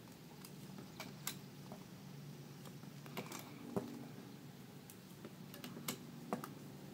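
Faint, scattered light clicks of rubber loom bands being stretched and snapped onto the pegs of a plastic loom, over a faint low hum.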